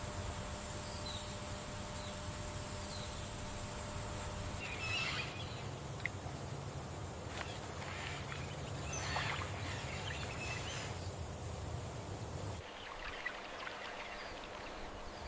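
Natural outdoor ambience: a steady low rumble and hiss with scattered short bird chirps. The background changes abruptly about three seconds before the end.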